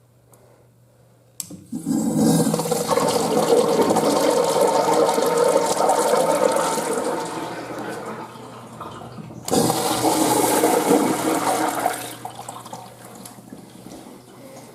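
A Crane commercial restroom fixture flushing: a sharp click of the flush valve about a second and a half in, then a loud rush of water that tapers off after several seconds. A second loud rush comes in suddenly near the ten-second mark and fades after a couple of seconds.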